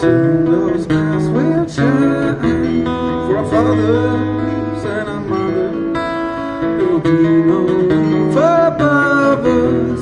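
Live acoustic guitar strumming chords while a man sings over it, both amplified through small PA speakers.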